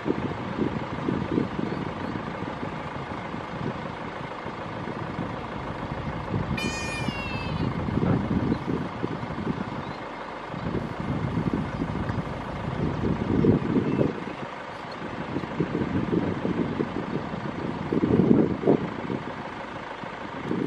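Low, continuous rumbling noise that swells and fades in irregular gusts, like wind buffeting the microphone, with one brief high-pitched call about six and a half seconds in.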